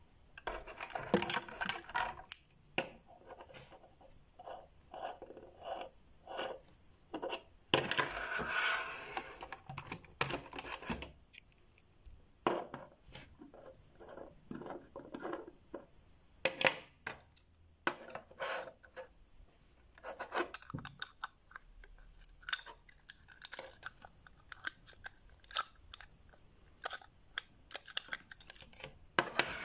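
Hard plastic Playmobil toy pieces being handled: irregular clicks, taps and knocks as parts are picked up, moved and set down on a wooden tabletop, with a longer stretch of rustling about eight seconds in.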